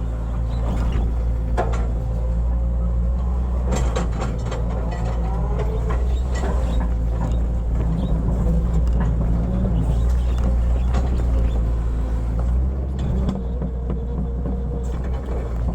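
Hitachi hydraulic excavator at work: its diesel engine runs steadily under load, with wavering rises and falls in pitch and scattered sharp clanks.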